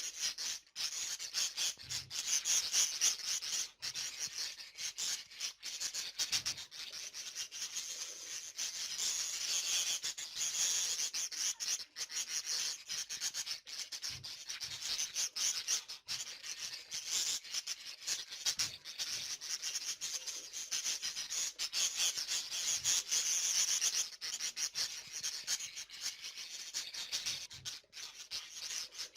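A flock of budgerigars chattering and warbling together, a continuous scratchy high-pitched twittering that swells and eases.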